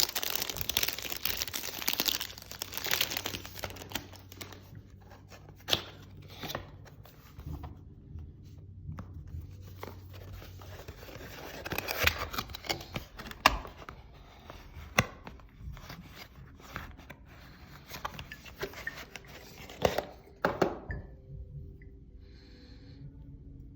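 Perfume box packaging being torn open and crinkled, dense crackling at first, then scattered clicks and knocks as it is handled, stopping a few seconds before the end.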